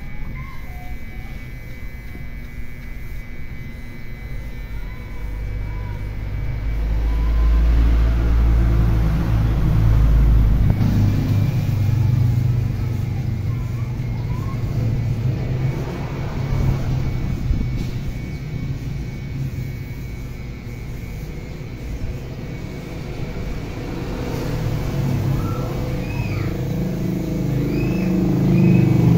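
Low rumble of road vehicles passing, swelling and fading twice.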